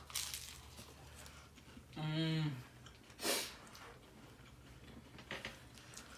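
Quiet mouth noises of people eating tacos: faint chewing and small clicks, with a short hummed "mm" about two seconds in and a brief hiss-like burst a second later.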